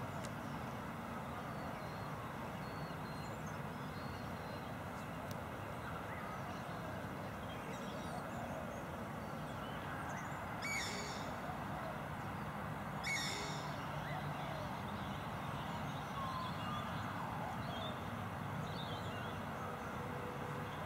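Outdoor ambience: a steady background hiss with faint birds calling throughout, and two short, sharp high calls a couple of seconds apart about halfway through.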